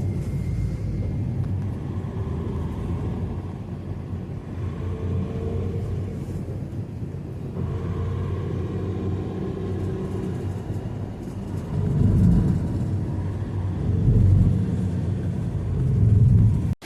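Motor vehicle running with a steady low rumble, swelling louder three times near the end.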